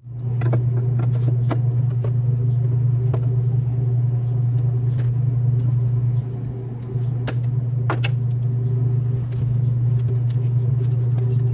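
Toyota D4D diesel engine running steadily with a low, even hum and scattered sharp clicks, dipping briefly in level about six seconds in.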